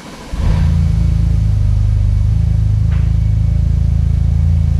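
BMW F-Series car's engine starting, catching about a third of a second in, then idling steadily. This is the first start after its ECU has been flashed and recoded, and it runs without trouble.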